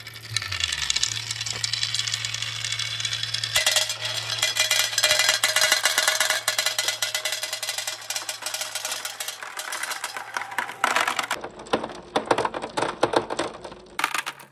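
Many glass marbles rolling and clacking against one another down a wooden marble-run track and through a plastic dish and chute, a dense, rapid clatter of clicks.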